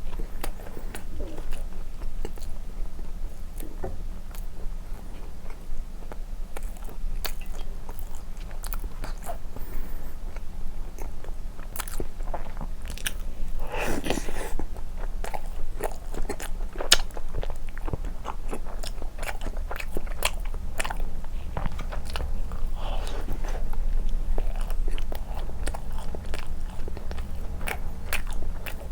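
Close-miked eating sounds of a person biting and chewing condensed-milk cream bread dipped in milk: many small wet mouth clicks and smacks, with one longer, louder wet sound about fourteen seconds in.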